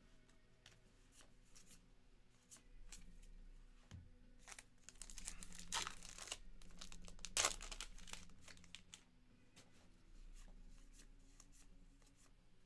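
A 2023 Topps Heritage High Number trading-card pack wrapper is torn open, with crinkling. There are a few rips about halfway through, the sharpest just after. Light handling of cards clicks softly around it.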